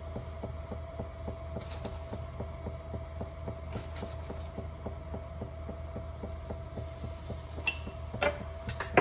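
Steady low hum with a fast, even throbbing, with a few short crinkles from a small plastic bag of salt being handled.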